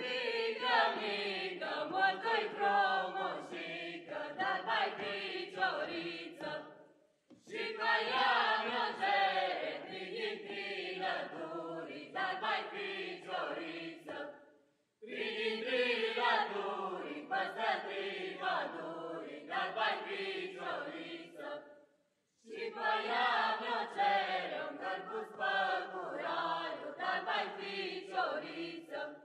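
A mixed group of men's and women's voices singing a Romanian Christmas carol (colindă) together, in phrases of about seven seconds, with brief breaks between them.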